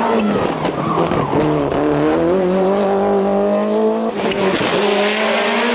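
Toyota Celica GT-Four ST185 rally car's turbocharged 2.0-litre four-cylinder engine at full throttle, its pitch climbing steadily as it accelerates. About four seconds in the pitch drops abruptly and the engine carries on with more hiss.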